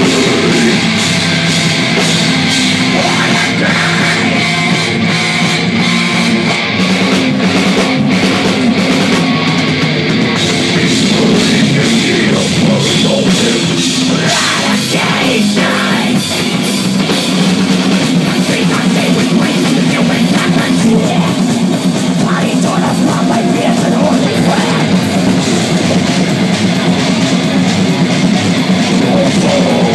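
A live heavy metal band playing loud and without a break: electric guitar, bass guitar and drum kit.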